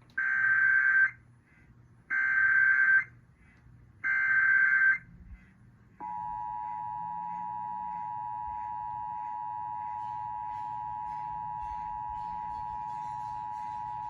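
Emergency Alert System SAME header: three one-second bursts of warbling digital data tones, two seconds apart, sent for a Required Monthly Test. About six seconds in the two-tone EAS attention signal (853 and 960 Hz together) starts and holds steady.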